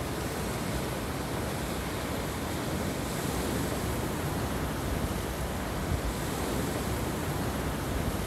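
Ocean surf breaking on rocks and washing in over a pebble beach: a steady rush of water.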